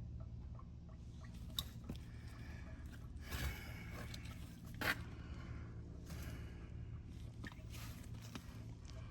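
Scattered scrapes and clicks of hand work with tools and car parts over a steady low hum, with a longer scrape about three and a half seconds in and a sharp click near five seconds.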